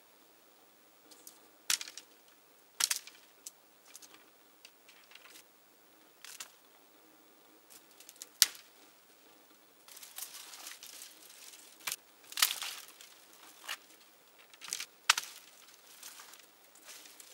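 Dry shrub branches being cut and broken off: irregular sharp cracks and snaps, a few seconds apart at first, then a busier stretch of crackling and rustling twigs in the second half.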